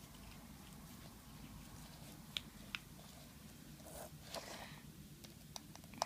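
Faint, sparse clicks and ticks of a small Phillips screwdriver working tiny screws on an iPhone's metal cable shield, with a short scraping rustle about four seconds in.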